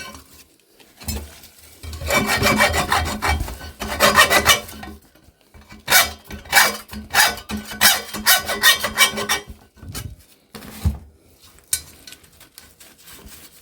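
Rapid, rhythmic metal-on-metal scraping and rasping in two long spells, with a few knocks between them, as copper windings are worked out of a refrigerator compressor's motor.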